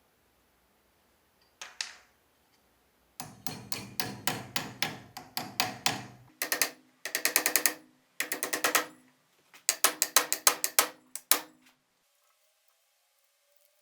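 Rapid mechanical clicking, like a ratchet or gear being worked by hand. One click comes about two seconds in, then several quick runs of clicks follow with short pauses between them.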